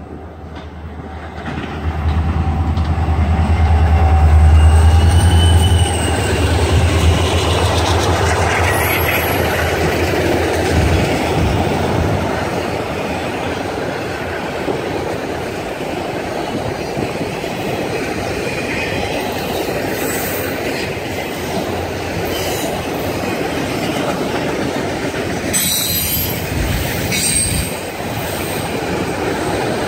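A train passing close by. A heavy low rumble builds in the first couple of seconds and fades after about ten. Then a steady rolling noise of the cars goes on, with thin high wheel squeals now and then and a few clicks near the end.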